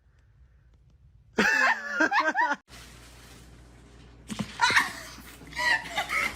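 A brief wavering vocal sound, then, after a cut, a person laughing in short repeated giggles.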